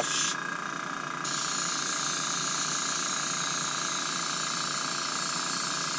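Airbrush hissing steadily as it mists a thin brown wash, starting about a second in, over the steady hum of its small air compressor.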